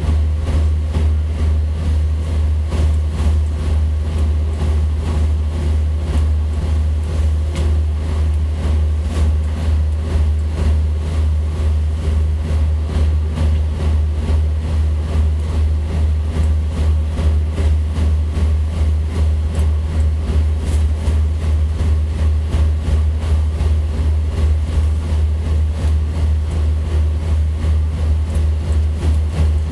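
Tugboat's diesel engines running steadily under way, a heavy low drone with an even throb.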